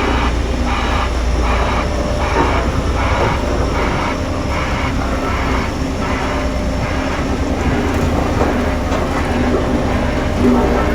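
Heavy construction machine's diesel engine running steadily, with a rhythmic swishing pulse about every two-thirds of a second that fades out after about six seconds.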